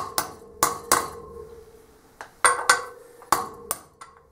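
Hammer blows on a socket driving a new wheel bearing into a dirt bike's front wheel hub: about ten sharp metallic strikes, mostly in pairs, each ringing briefly, with a pause of about a second midway.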